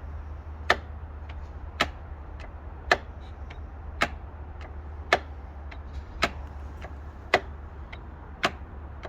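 Toyota bZ4X charge-port lock clicking about once a second, eight sharp clicks with fainter ones between, over a steady low hum: the lock keeps cycling and fails to latch the original Toyota charging cable, the defect the owner blames on the cable.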